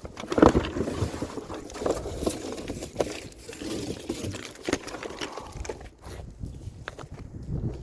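Footsteps and handling noise: irregular scuffs, knocks and rustles.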